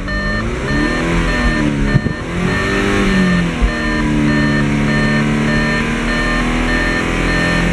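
Audi 2.0 TFSI turbocharged four-cylinder engine (CDNC) revved in park during an engine test: it is blipped up and down twice, then held at a steady raised speed, around 4,500 rpm. A dashboard warning chime beeps repeatedly over it.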